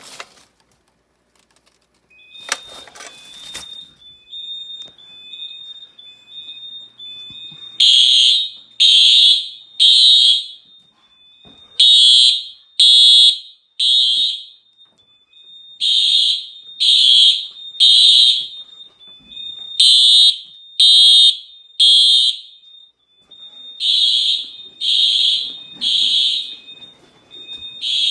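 Simplex TrueAlert ES fire alarm horns sounding in alarm in the temporal-three (code 3) pattern: three blasts about a second apart, then a pause, repeating. The blasts start about eight seconds in, after a faint steady high tone.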